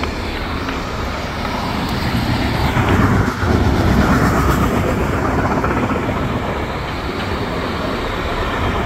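Intermodal freight train of container and tank-container wagons passing at speed, a continuous steady noise of wheels on rails and wagons rolling by.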